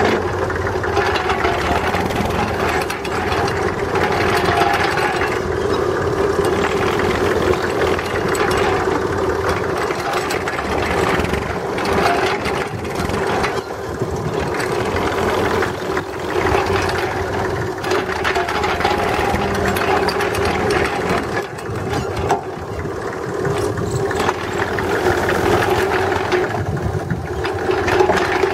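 Farm tractor engine running steadily under load, turning a PTO-driven compost spreader's spinning disc.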